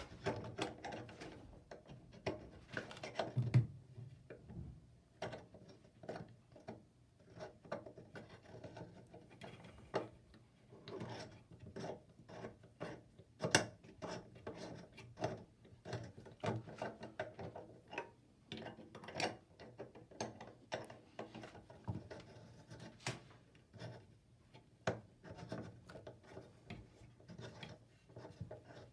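A threaded connector being screwed onto a faucet by hand: irregular rubbing and scraping with many small clicks as the parts turn and are handled.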